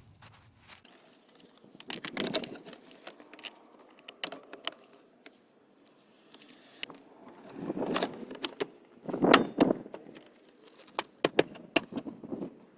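Scattered clicks, knocks and rattling from parts and tools being handled during dashboard reassembly, with louder rattling bursts about two seconds in and again past the middle.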